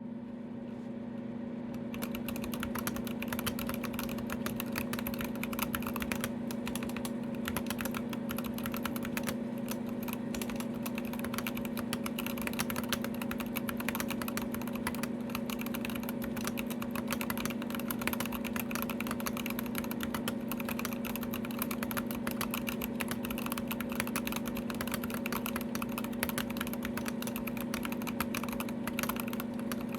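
Continuous fast typing on a GMMK Pro mechanical keyboard fitted with Drop Holy Panda X tactile switches, the keystrokes clacking densely from about two seconds in. A steady low hum runs underneath.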